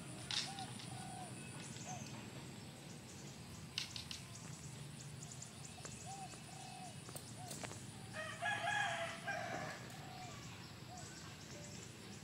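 Short faint bird calls now and then, and about eight seconds in one loud drawn-out animal call lasting about a second and a half.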